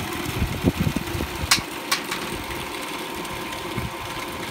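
Food processor motor running steadily, its blade chopping wild garlic leaves into pesto as olive oil is drizzled in through the feed tube; the motor stops suddenly at the very end.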